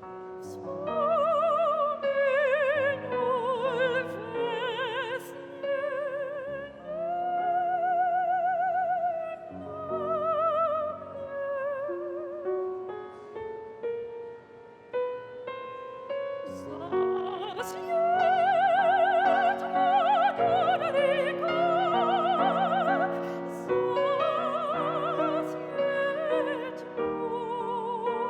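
Operatic solo singing in a high voice with wide vibrato and long held notes, accompanied by piano.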